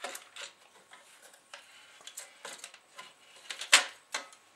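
Scattered clicks and knocks of the CD mechanism being worked loose and lifted out of a Denon DN-D4000 twin CD player's sheet-metal chassis, with two sharper knocks near the end.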